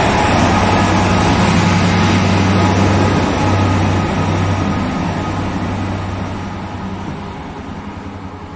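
Freightliner Class 66 diesel-electric locomotive, its EMD two-stroke V12 running with a steady low drone as it passes close by and pulls away. The sound fades steadily over the second half as it draws off.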